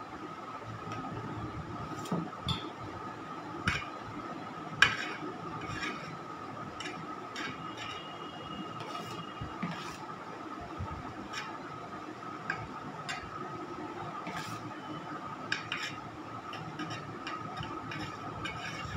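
Scattered light clicks and taps from an icing spatula working cream onto a cake on a metal turntable, with one sharper knock about five seconds in, over a steady faint hum.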